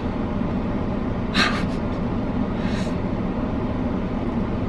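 Steady low background rumble, with a short sharp breath about a second and a half in and a fainter one near three seconds.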